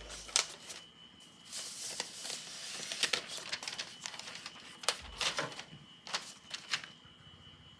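Packaging of an Apple iPad Air box being handled and opened: rustling of paper and plastic with a string of sharp clicks and taps, busiest in the first half and followed by a few separate taps near the end.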